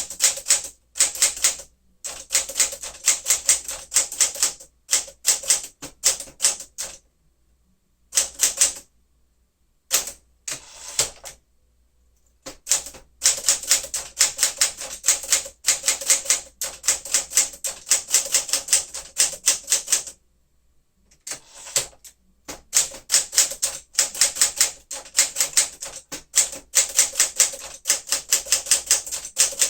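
1959 Smith-Corona Sterling manual typewriter being typed on. Quick runs of keystrokes snap the type bars against the platen, broken by several pauses of a second or two.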